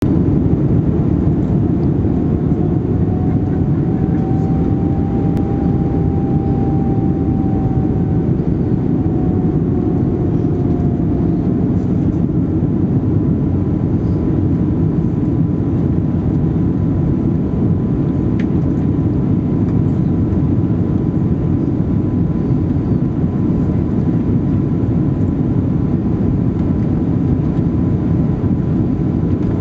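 Steady cabin noise of an Airbus A319-112 in descent, heard from inside the passenger cabin: the rush of the CFM56 turbofans and airflow. A faint whine rises slightly and falls back in the first third.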